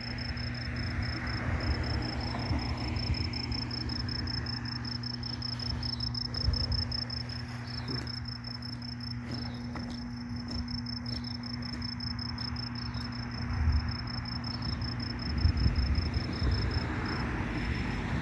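Crickets trilling steadily outdoors at night, a continuous high-pitched pulsing chirr, over a steady low hum and some uneven low rumbling that grows stronger near the end.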